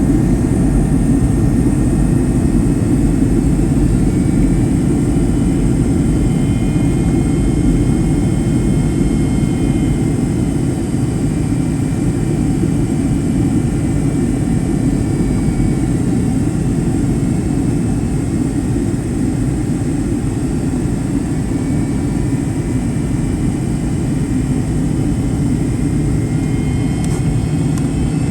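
Steady roar of a Boeing 757-200's cabin in flight, engine and airflow noise heard from the forward first-class cabin, with a faint high whine over it.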